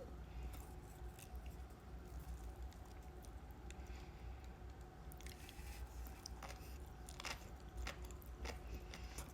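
Faint, close-miked chewing of seaweed salad: soft, wet mouth sounds with scattered small clicks.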